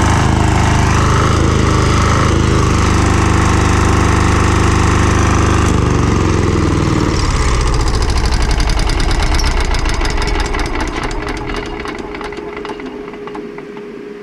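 Single-cylinder air-cooled 10 hp diesel (Yanmar 186F clone) driving a generator, running steadily at speed, then shut down about six seconds in. Its pitch drops and the firing beats slow and spread apart as it coasts to a stop over several seconds.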